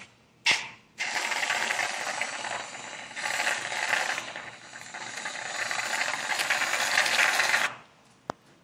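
Whipped cream dispenser hissing and sputtering as it pipes cream out through its nozzle. There is a brief spurt at the start, then one long spray from about a second in that stops shortly before the end, followed by a single small click.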